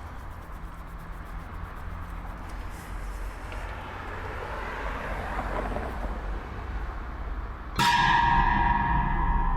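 Horror soundtrack: a low droning rumble that slowly swells, then a sudden loud metallic, gong-like hit near the end that keeps ringing as a jump-scare sting.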